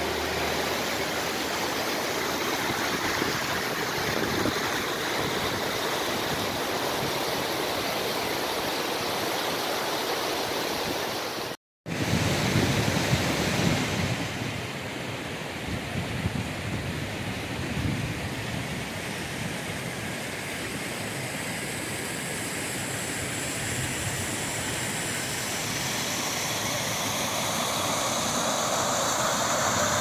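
Rushing water of a mountain waterfall and its rocky stream, a steady hiss. It cuts out for a moment a little before halfway, and grows louder and brighter near the end.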